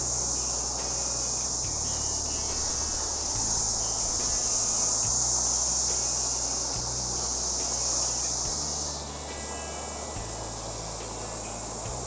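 A steady, high-pitched insect chorus over the rush of a glacier-fed waterfall. The high chorus drops in level about nine seconds in.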